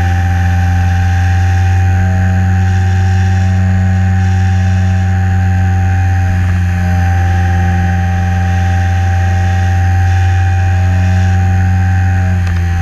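Electric motor and propeller of a HobbyZone Super Cub LP model plane running steadily, picked up by a camera on board: a constant low hum with a whine of steady tones above it that shift a little in pitch as the plane flies.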